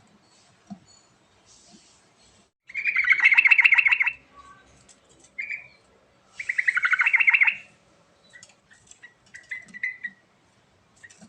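Yellow-vented bulbul (trucukan) singing. Two loud bursts of rapid chattering notes come about three and six and a half seconds in, each lasting over a second, with short softer chirps between and after them.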